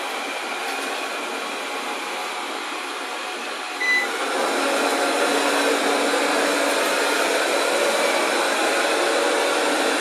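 Dser RoboGeek 23T robot vacuum cleaner running in maximum suction mode: a steady fan hiss that gets louder about four seconds in, just after a short beep.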